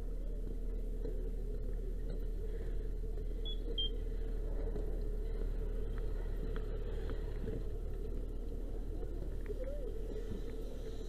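Fire engine running steadily, a continuous low hum, with two short high beeps about three and a half seconds in.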